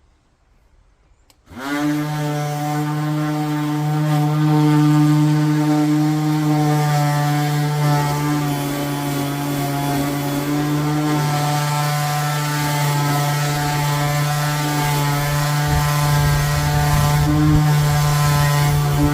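Electric power sander switched on about a second and a half in, then running steadily with a constant motor hum.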